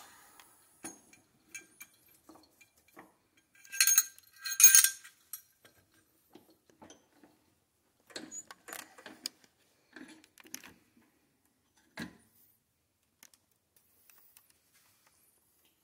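Metal gun parts clinking and tapping as an AR-15 barrel is set up in a bench vise: two louder metallic clinks about four seconds in, then scattered light clicks and taps.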